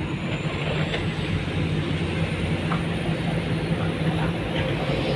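Komatsu PC200-8 excavator's diesel engine running steadily, with a few faint knocks over it.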